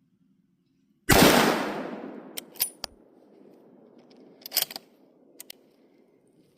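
A single loud gunshot from a deer-hunting gun, dying away in a long echo over about a second. A few short, sharp clicks follow over the next few seconds.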